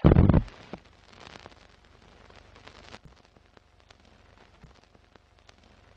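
Old-film crackle sound effect: a loud hit in the first half-second, then a faint crackling hiss with scattered sharp clicks and pops.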